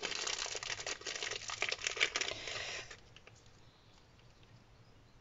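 Clear plastic bag crinkling and rustling as hands turn it over, with small plastic pots of paint inside. It stops about three seconds in.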